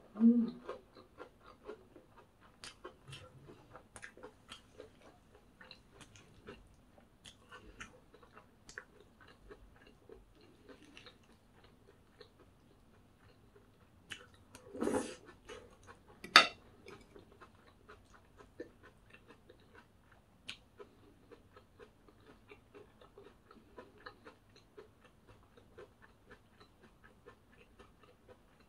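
A person chewing and eating food close to the microphone, with many small clicks throughout. A louder sound comes right at the start, and a single sharp click about sixteen seconds in.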